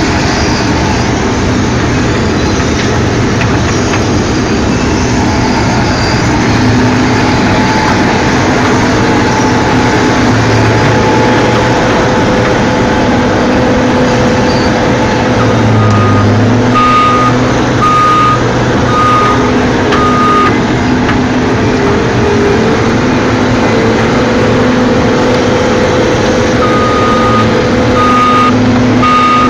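Heavy diesel machinery of an asphalt milling operation running steadily. A backup alarm beeps about once a second, five times around the middle and again near the end.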